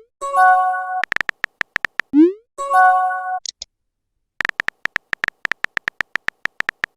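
Phone messaging-app sound effects: quick runs of keyboard-typing clicks, a short rising swoop, and a brief electronic chime. The chime sounds near the start and again about three seconds in, and a long run of rapid clicks fills the second half.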